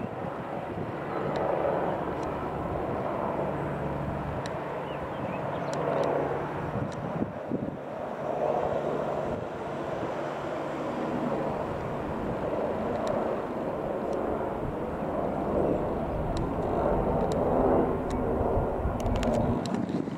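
AgustaWestland AW169 helicopter flying overhead: the steady sound of its twin turbine engines and main rotor, swelling and fading in loudness every few seconds.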